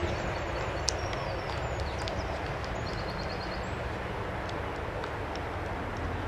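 Steady outdoor background noise with a low rumble, and birds chirping faintly in short quick runs of notes.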